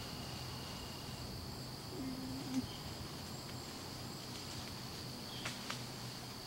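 A black bear cub calling for its mother: one short, low call about two seconds in, over a steady high buzz of insects. Two sharp clicks near the end.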